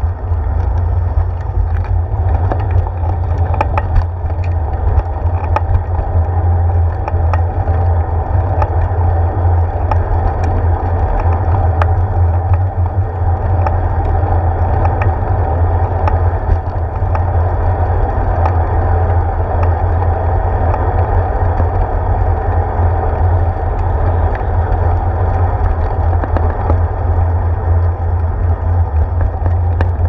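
A bicycle rolling over pavement: steady, loud, low road-and-tyre rumble carried through the handlebar into the mounted camera, with small knocks from bumps in the surface.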